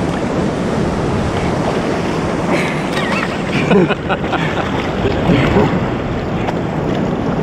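Shallow sea surf washing steadily around, with wind buffeting the microphone.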